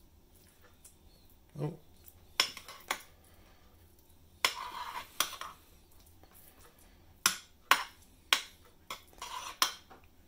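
Metal spoon clicking and scraping against a glass baking dish while mashed swede is spread level, in scattered sharp taps and a few short scrapes.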